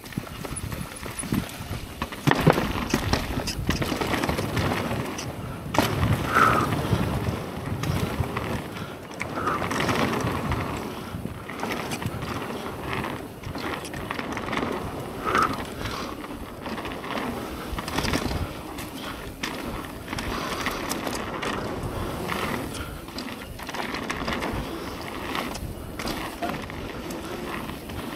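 Mountain bike being ridden along a dirt trail: tyres rolling over the rough ground with the bike rattling and knocking irregularly over bumps.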